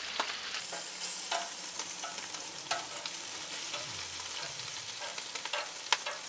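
Strips of bacon sizzling on a Blackstone gas flat-top griddle, a steady hiss with scattered sharp pops and the clicks of metal tongs lifting and setting down strips on the steel surface.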